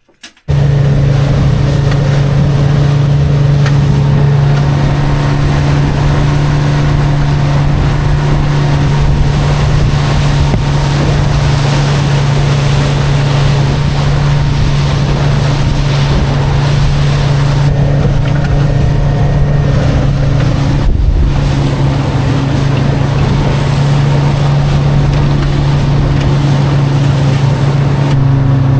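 Boat's outboard motor running at steady cruising speed with wind and water rushing past, starting abruptly about half a second in. The engine note eases down slightly near the end.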